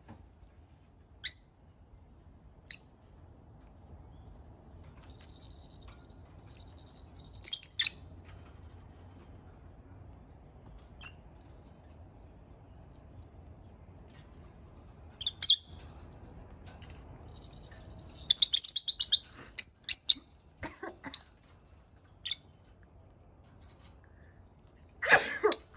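Pet rosy-faced lovebirds giving short, sharp, high-pitched chirps, some single and some in quick clusters, busiest in a run of calls about two-thirds of the way in. A harsher burst comes near the end.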